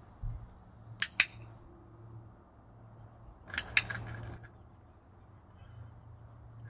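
Handheld dog-training clicker clicked twice, about two and a half seconds apart, each a sharp two-part click-clack. Each click marks a food reward for the puppy: the clicker is being charged.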